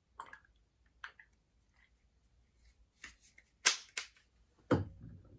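Sharp clicks and knocks of a cleaner bottle and shoe-care tools being picked up, opened and set down, about six in all. The loudest two come close together a little past the middle.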